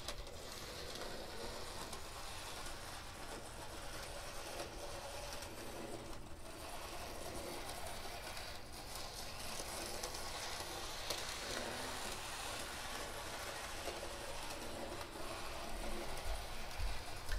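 Small N-scale diesel model locomotive running around the track, a faint steady whir of its little motor and gears with light ticking of wheels on the rails.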